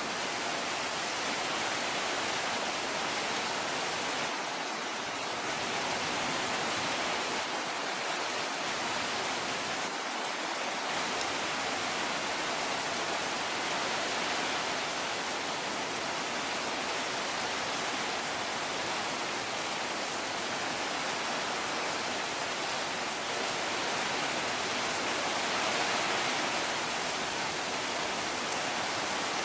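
Heavy storm rain falling steadily: a dense, even hiss with no breaks.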